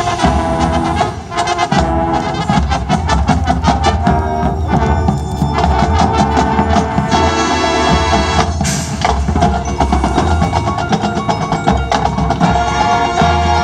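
High school marching band playing its field show: busy percussion strikes over held chords.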